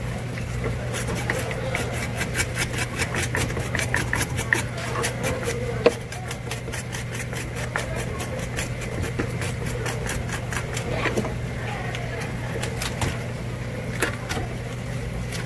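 Knife working through a sea bass on a cutting board: quick rhythmic strokes, about five or six a second for several seconds, then slower scattered cuts, with one sharp tap about six seconds in. A steady low hum runs underneath.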